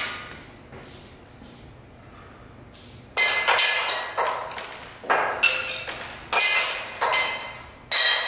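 Small percussion objects struck by hand in an irregular run of about ten sharp hits, starting about three seconds in. Each hit rings briefly with several high tones and fades fast. Before the run there are only a few faint light taps.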